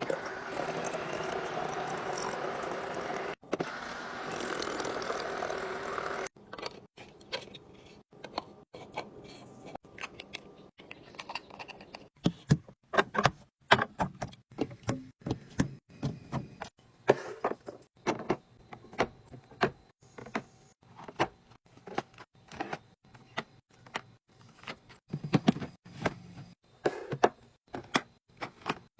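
Ice cream packages and containers being handled and set into a mini fridge: a long run of sharp clicks, taps and light rattles of plastic and cardboard, at times several a second. Before that, for about the first six seconds, a steady noisy sound that cuts off abruptly.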